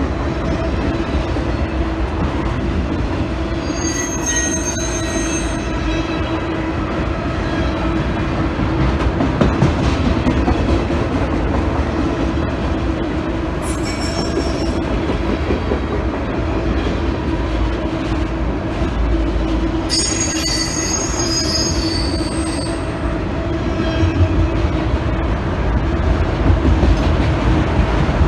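Freight train of autorack cars rolling steadily past, a continuous rumble of wheels on rail. High-pitched wheel squeals break in about four seconds in, again around fourteen seconds, and for a few seconds from about twenty seconds.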